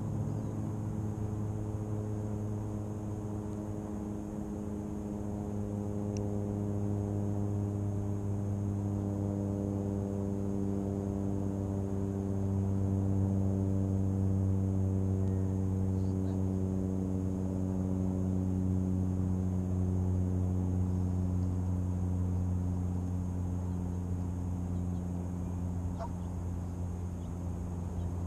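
A low, steady engine hum rich in overtones, its pitch sinking slowly while it swells toward the middle and then eases off a little.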